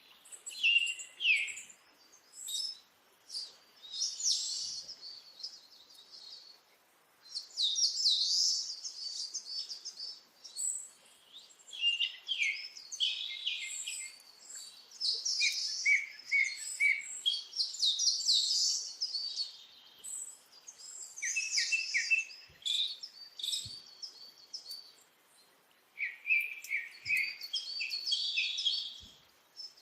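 Small birds chirping and twittering in repeated bursts of quick high notes, with short pauses between bursts.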